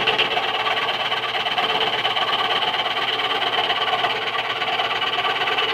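Harbor Freight scroll saw running steadily, its reciprocating blade cutting along a pattern line in wood.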